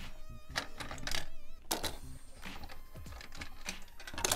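Light plastic clicks and clacks, several separate taps spread across a few seconds, as small toy dishes and the dish rack of a plastic toy kitchen set are handled.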